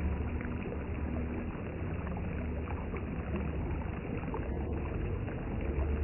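Steady low rumbling background noise, with a faint held low note that comes and goes.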